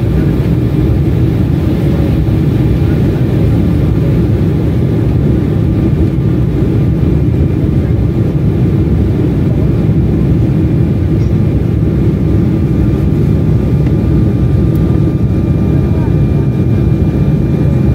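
Steady cabin noise inside an Embraer 175 twin-jet airliner in descent: a constant low rumble of airflow and its two turbofan engines, with a faint high hum over it.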